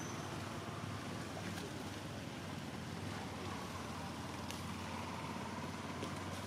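Steady low rumble and hiss of outdoor background noise, with a few faint ticks.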